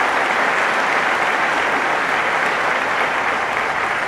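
Large audience applauding steadily in a packed hall, the clapping easing slightly near the end.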